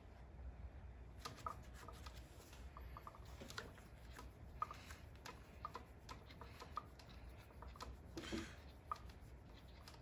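Faint handwork of hand-stitching a shoe welt: scattered small clicks and short squeaks as the thread is drawn through the leather and pulled tight, with a louder rustle about eight seconds in.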